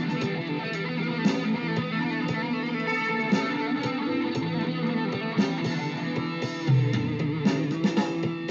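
Electric guitar played through a distortion effect: picked notes and held chords that ring on, with sharp pick attacks here and there.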